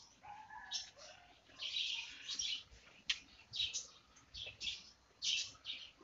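Small birds chirping in quick, repeated short bursts, with a few lower gliding calls in the first second or so.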